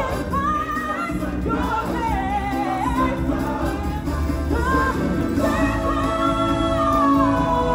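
Stage-musical song: voices singing with backing music, holding long, wavering notes.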